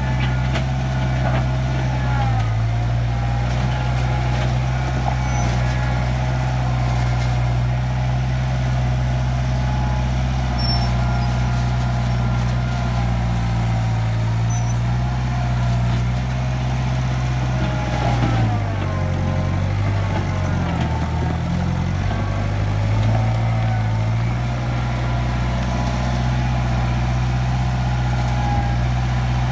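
Diesel engine of an International Harvester backhoe loader running steadily while the machine works. Its pitch sags briefly under load early on and again for a few seconds about two-thirds of the way through.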